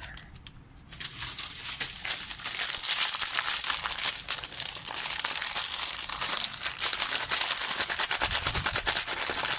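Plastic packaging of misua noodles being crinkled and handled as it is opened, a dense crackling that starts about a second in and goes on continuously.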